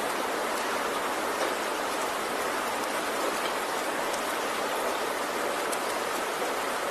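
Steady rainfall: an even hiss of rain with scattered individual drops.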